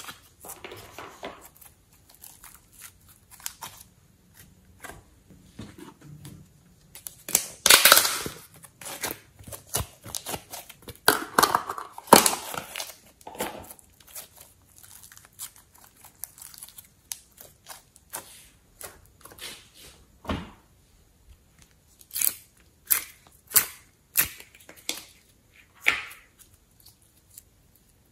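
Thick slime being handled by hand: moulded pieces squeezed, pulled apart and pressed together, giving irregular sticky clicks, pops and crackles. The noise is loudest in two short stretches in the first half.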